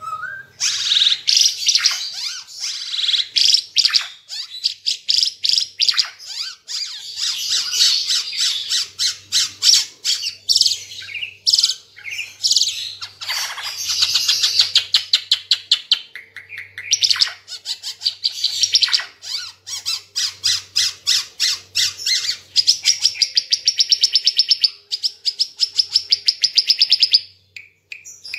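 Timor figbird (burung ara Timor) singing a loud, nearly continuous song of fast chattering trills and whistled notes, with long runs of rapidly repeated notes. It breaks off about a second before the end.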